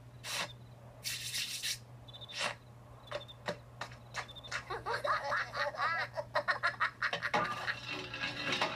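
Cartoon soundtrack heard through a TV speaker: a few sharp knocks and a short hiss about a second in, then several seconds of laughing voices over more knocks, with a steady low hum underneath.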